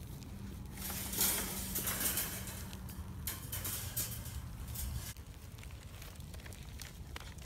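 Wood bonfire crackling, with a louder rush of noise between about one and two seconds in and a faint low hum under it for the first five seconds.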